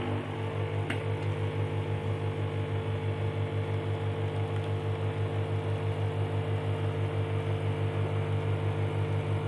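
Coffeeza capsule coffee machine's pump running while it brews a half cup of espresso: a steady low buzzing hum that pulses regularly, with a faint click about a second in.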